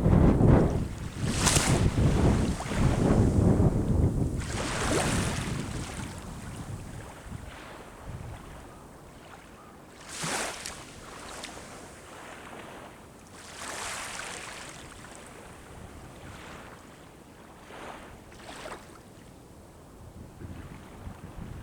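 Sea waves breaking and washing up the shore, with several separate surges several seconds apart. Wind buffets the microphone with a loud low rumble for the first few seconds.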